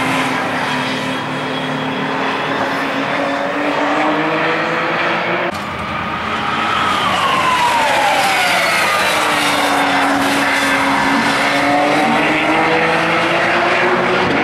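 Porsche 911 race car's flat-six engine running hard on the circuit, its pitch rising and falling with the revs and gear changes. The sound cuts off abruptly about five and a half seconds in; then the engine note drops in one long slide as the car goes past and slows, before settling into a steady run again.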